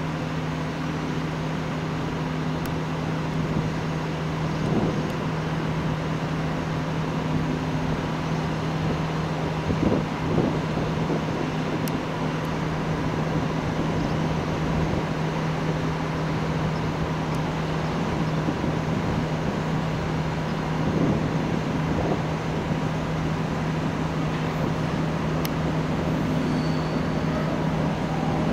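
A CP Series 5600 electric locomotive hauling a passenger train draws slowly into the station. The sound is a steady low electrical hum over rail and yard noise, growing slightly louder near the end.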